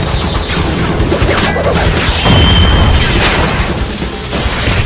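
Dense fight sound effects: crashing impacts and booming blasts over dramatic music, with a brief high ringing tone near the middle.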